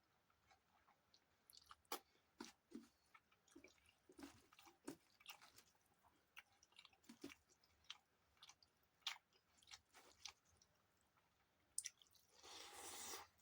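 Close-miked chewing and wet mouth smacks of a person eating rice with dalma and chutney: quiet, scattered clicks, with a rush of noise lasting about a second near the end.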